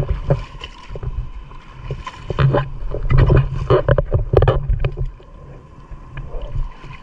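Feet sloshing and splashing through shallow water over a reef flat, with a run of louder splashes in the middle that ease off near the end, over a steady low rumble.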